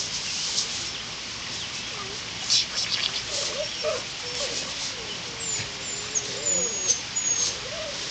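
Short scratchy swishes of a bristle brush dragged over grass, the sharpest about two and a half seconds in. From about three seconds in, a low wavering warble rises and falls, and thin high bird chirps come in over the second half.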